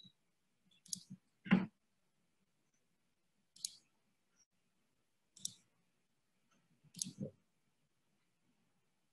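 A handful of sharp computer mouse clicks spaced a second or two apart, the loudest about one and a half seconds in, with quiet room tone between them.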